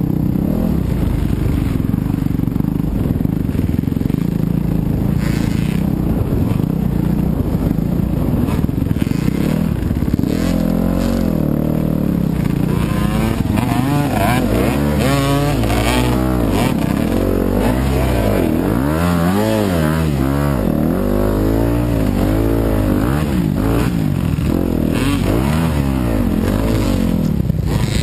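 Yamaha YZ250FX 250 cc four-stroke single-cylinder dirt bike engine being ridden hard off-road. The revs rise and fall over and over, more sharply in the second half, with occasional knocks and clatter from the bike.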